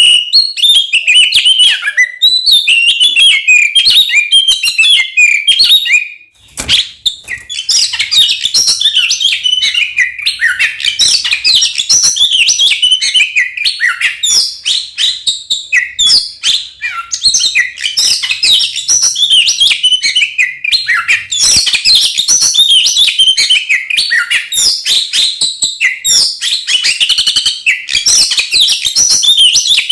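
Oriental magpie-robin (kacer) singing loudly and non-stop in fast, varied, chattering and whistled phrases, the full, aggressive song used to provoke rival males. The song drops out briefly about six seconds in, then resumes denser.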